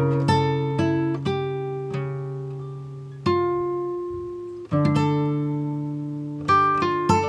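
Background music of plucked acoustic guitar, notes and chords struck and left ringing to fade; a little after three seconds in, one chord rings on for over a second before the next strike.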